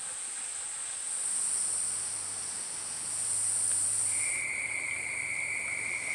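Rainforest insects droning: a steady high-pitched buzz that swells twice, joined about four seconds in by a second, lower steady whine.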